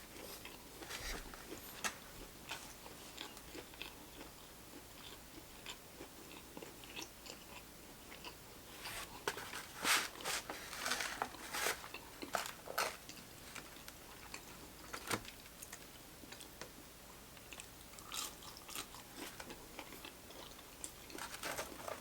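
A person eating close to the microphone: steady chewing with short crunchy bites and mouth clicks, with a louder run of crunching about halfway through.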